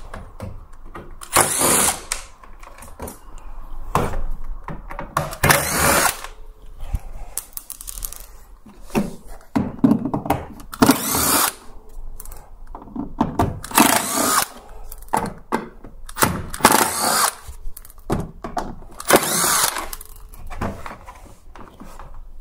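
Bosch cordless impact driver backing screws out of a dryer's plastic panel, running in short bursts of a second or less with pauses between, about a dozen times.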